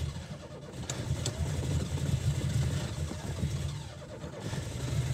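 Carbureted car engine starting from a deep-frozen cold soak on the choke and running unevenly; its sound sags about four seconds in, then picks up again.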